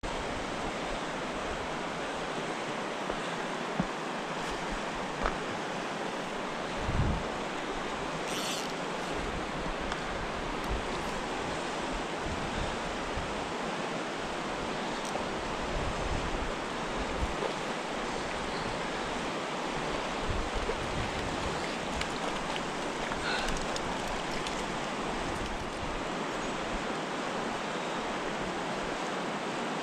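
Steady rushing of the Madison River's fast current past a rocky bank, an even wash of moving water, with a few brief low bumps, the loudest about seven seconds in.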